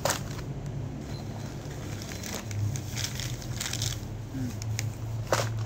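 Yellow cellophane gift wrapping crinkling and crackling as it is handled and unwrapped, in irregular rustles with a sharp crackle at the start and another near the end. A steady low hum runs underneath.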